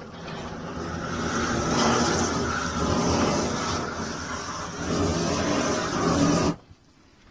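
Loud steady mechanical noise with an engine-like hum, building up over the first two seconds and cutting off abruptly near the end.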